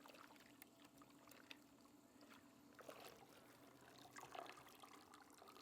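Faint splashing and dripping of water as a chicken carcass is dunked in a pot of scald water, with small sloshes about three and four seconds in; otherwise near silence.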